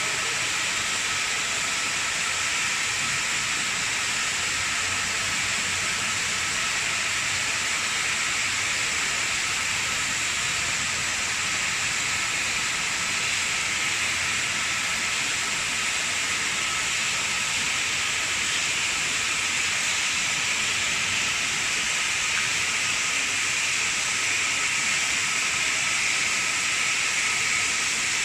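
Oxy-fuel flame cutting torch hissing steadily as it cuts steel pipe, a continuous loud rush with a thin steady whistle in it.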